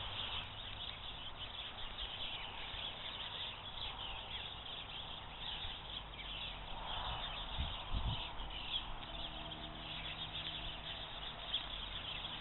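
Faint outdoor background: a low, even hiss with a few soft knocks about halfway through.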